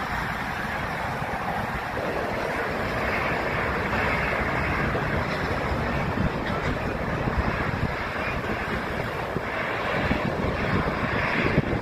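Twin turbofan engines of a taxiing Embraer E195 regional jet running at low thrust as it rolls past, a steady whooshing hiss that swells twice, with wind buffeting the microphone.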